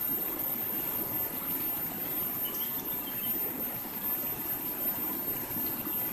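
River water rushing steadily over rocks in a shallow stream, with a few faint high chirps about halfway through.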